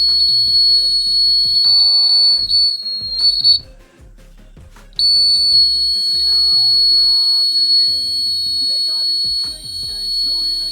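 Homemade fire alarm's buzzer, wired to a 9-volt battery and switched by a fluorescent-tube starter, giving a steady high-pitched tone. It sounds for about three and a half seconds, stops, and starts again about five seconds in.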